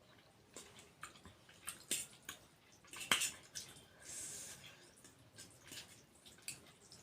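Close-up wet eating sounds: spicy, saucy noodles being chewed and slurped, with many small smacks and clicks, the loudest about three seconds in, and a short hissing slurp just after four seconds.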